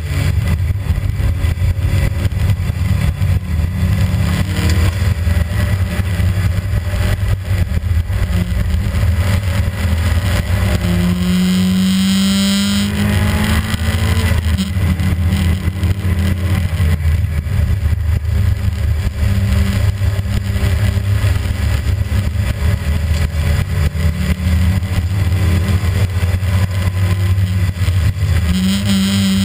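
Rally car's engine heard from inside the cabin, driven hard. Its note rises steadily for a couple of seconds about halfway through, drops sharply at a gear change, and starts climbing again near the end.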